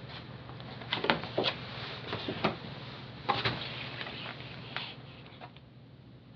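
Large paper signs rustling and crackling as they are handled and slid over one another, in a handful of short crinkles, loudest between about one and three and a half seconds in. A faint steady room hum lies underneath.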